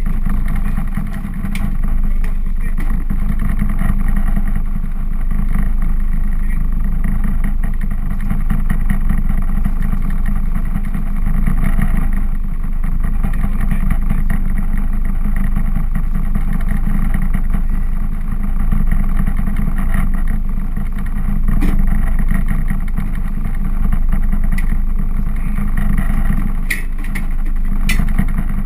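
Boat engine running steadily, a constant low rumble, with a few sharp knocks in the last few seconds.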